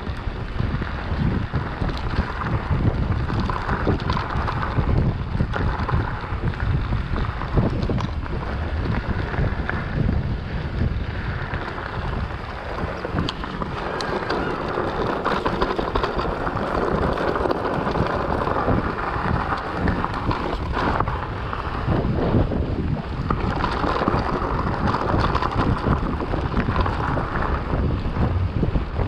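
Wind buffeting the microphone of a handlebar-mounted camera on a mountain bike, over the rumble of tyres rolling on a dirt and gravel trail, with scattered clicks and knocks from the bike.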